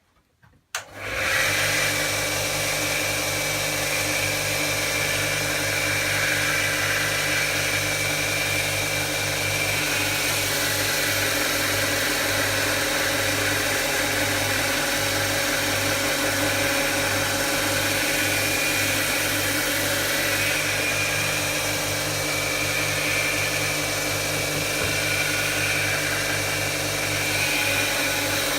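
A 2x27 belt grinder switched on about a second in, its electric motor and 80-grit belt running with a steady hum and whir as it grinds the bevel of a steel knife blade.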